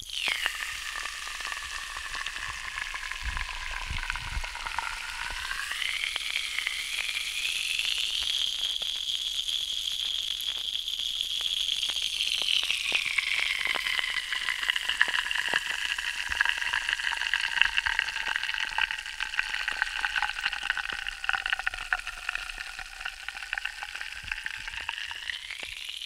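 Effervescent medicine tablet fizzing as it dissolves in water: a dense, continuous crackle of tiny bursting bubbles. A hollow ringing above it rises in pitch a few seconds in and later sinks again.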